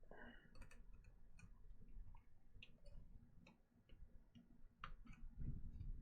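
Faint, irregular small clicks and taps of hands working on a graphics card as it is taken apart, with a slightly louder click about five seconds in.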